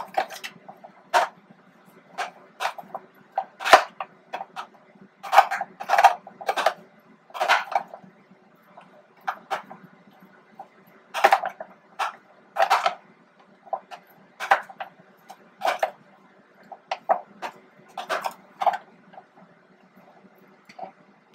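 Spice shaker of dried dill being shaken and tapped over a container of chopped yellow squash: irregular sharp taps and clicks, about one a second.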